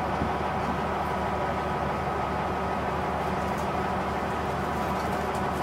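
Diesel railcar running, heard from inside the passenger cabin: a steady engine drone with the train's running noise as it moves along the line.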